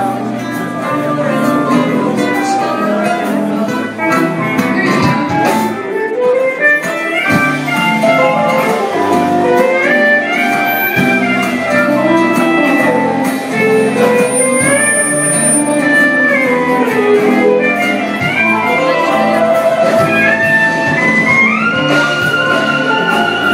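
Live band playing an instrumental passage: a lead melody line slides between held notes over guitar and keyboard backing.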